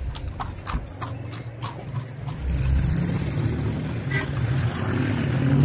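Hooves of a carriage horse clip-clopping on pavement, about three or four beats a second. After about two and a half seconds they give way to steady street traffic noise with a low hum.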